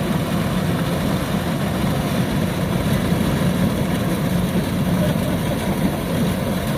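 Kubota DC-105X combine harvester's diesel engine running steadily with a constant low hum.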